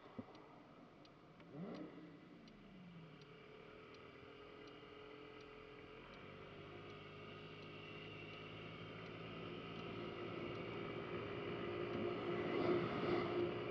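Honda Ruckus scooter's small single-cylinder engine pulling away from a stop, its sound growing steadily louder with wind on the microphone near the end. Early on, a passing car's sound falls in pitch.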